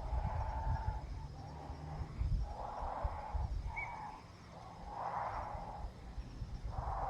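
Nestlings giving a run of breathy, hissing begging calls, each about a second long, one after another about once a second, over a low rumble.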